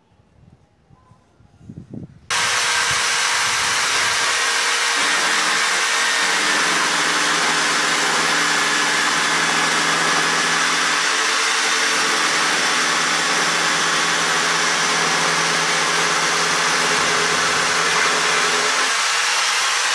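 Corded electric drill switched on about two seconds in and running steadily, boring a hole down through a thick wooden board; its hum dips slightly in pitch a couple of times as the bit loads. A few light handling knocks come before it starts.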